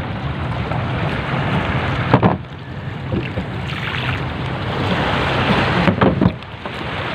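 Motorized outrigger fishing boat under way: its engine runs steadily under the rush of water and wind on the microphone.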